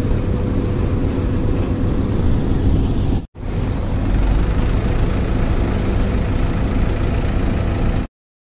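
Diesel truck engine idling nearby: a loud, steady rumble that breaks off for a moment a little after three seconds and stops abruptly near the end.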